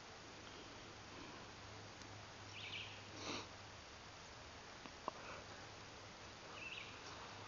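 Quiet outdoor ambience with a few faint short chirps, a brief sniff close to the microphone about three seconds in, and a single sharp click about five seconds in.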